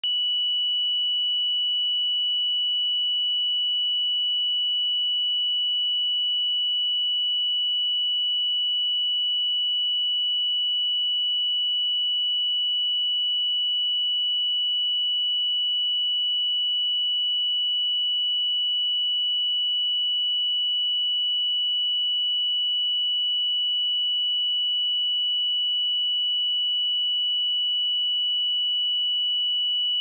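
A pure 2951 Hz sine-wave test tone: a single steady high-pitched whistle, held at a constant level with no change in pitch.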